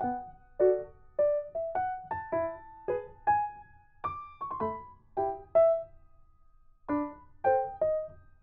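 Background music: a light melody of single piano-like notes, with a short pause about six seconds in.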